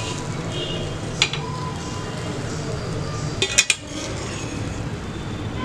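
Spoon clinking and scraping against the pot as cooked biryani rice is gently mixed: one sharp clink about a second in, and a quick cluster of clinks a little past halfway, over a steady low hum.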